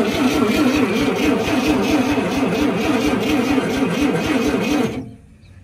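Dodge D300 inline-six being cranked over on its starter motor, with an even rhythmic rise and fall, several beats a second, as it turns without firing. The cranking cuts off about five seconds in. The engine is being cranked to test the ignition for spark, after it had shown no spark.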